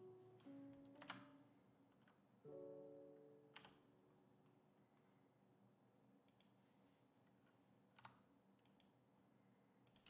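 Faint background music with a few soft held notes that fade, and three sharp clicks of a computer mouse spread through it.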